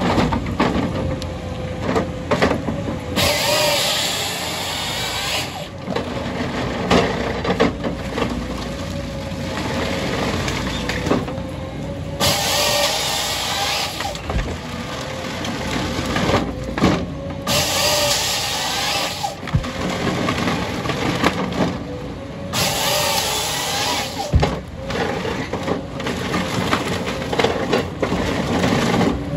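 Tracked harvester's diesel engine and hydraulics running under load as its Woody H61 harvester head grips, feeds and delimbs logs. Four times the head's chain saw cuts through a log, each cut lasting about two seconds.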